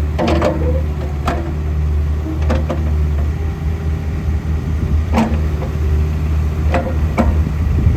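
Takeuchi TB145 compact excavator's diesel engine running steadily, with a few sharp knocks, roughly one every second or two, as the machine works.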